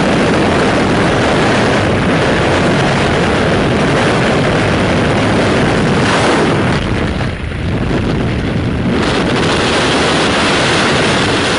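Loud, steady rush of airflow and propeller-engine noise at the open door of a small high-wing plane in flight, with wind buffeting the microphone. The hiss thins briefly about seven seconds in.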